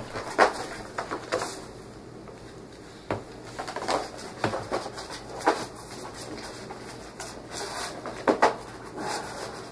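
Irregular handling noise: scattered knocks, clicks and rustles of objects being moved about, the sharpest about half a second in and again near the end.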